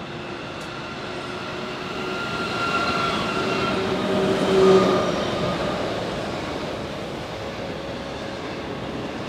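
Container freight train hauled by NR-class and LDP-class diesel-electric locomotives passing close by. The locomotives' engine note builds to its loudest about four and a half seconds in and then falls away, leaving the rolling and clatter of the container wagons on the rails.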